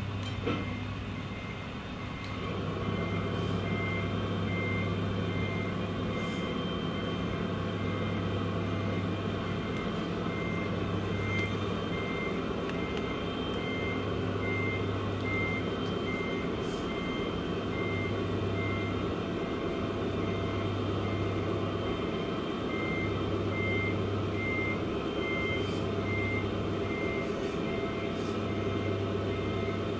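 Sound unit of a 1/14 Tamiya Scania 770 S RC truck playing a diesel engine running sound with a steady reversing beeper. The short beeps start about two to three seconds in and repeat evenly as the truck backs up.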